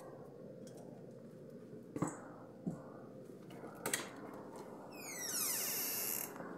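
Hotel room door being worked open: a few sharp clicks and knocks from the latch and lock, then a high scraping hiss for about a second as the door swings open, cutting off suddenly.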